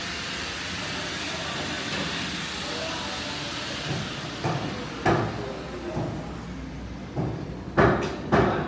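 Steady background noise, then a string of sharp knocks and bangs from construction work, coming faster and louder near the end.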